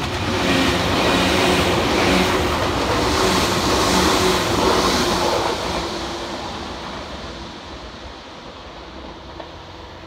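Tokyu 8500 series electric commuter train passing close by: wheel and rail noise with motor hum, loudest for about the first five seconds, then fading as the train moves away.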